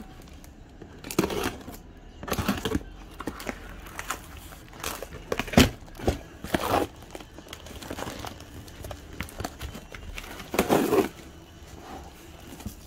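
A parcel's packaging being opened by hand: wrapping crinkling and tearing in irregular bursts, with a few sharp clicks. The loudest bursts come about halfway through and near the end.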